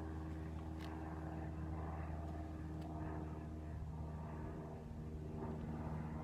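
A steady low engine drone from an unseen motor, with a few faint ticks.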